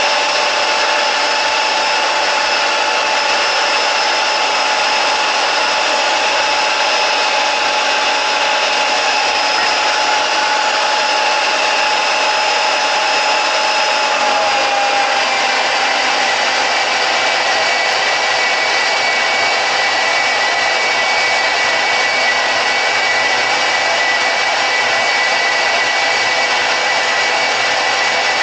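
Harbor Freight 10-amp deep-cut variable-speed portable band saw running and cutting through metal: a steady motor whine over the hiss of the blade. The pitch of the whine shifts about halfway through.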